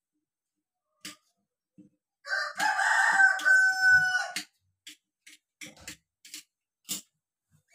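A rooster crows once, a long call of about two seconds that starts a couple of seconds in, held and then falling away. Scattered sharp clicks and pops come before and after it.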